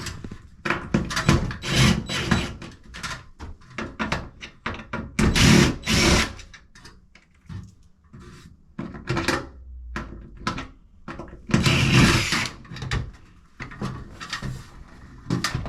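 An old bathroom vanity light fixture being worked loose and taken down from the wall. It gives a run of short clicks, knocks and metal rattles, with two longer, louder stretches of scraping and clatter about five and twelve seconds in.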